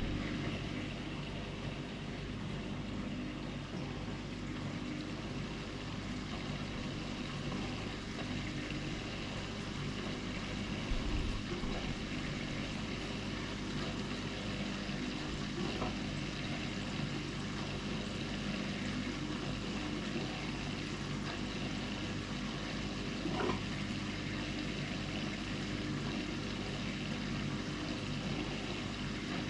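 Aquarium filter pump running with a steady low hum and a wash of moving water, with a faint thump about eleven seconds in.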